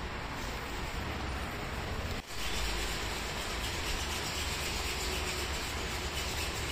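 Pressure washer's motor and pump running steadily: a constant rumble with hiss, broken by a brief drop about two seconds in.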